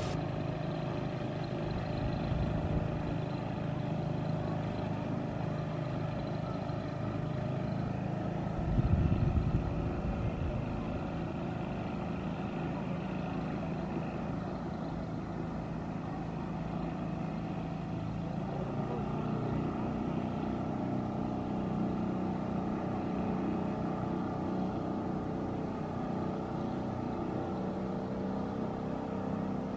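Small outboard motor on a jon boat running steadily under way, a constant drone whose note shifts slightly about nineteen seconds in. A brief low bump about nine seconds in.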